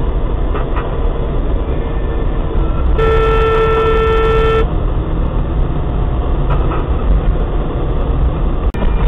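A car horn sounds once, a single steady note held for about a second and a half, over the steady road and engine noise heard from inside a moving car.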